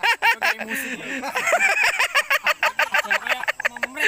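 Men laughing: a long run of quick, pitched bursts, several a second, overlapping one another.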